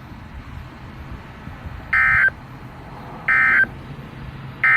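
Emergency Alert System end-of-message (EOM) data bursts on a weather radio broadcast: three short, identical digital bursts about 1.3 seconds apart, marking the end of the flash flood warning message. They follow a couple of seconds of faint steady hum.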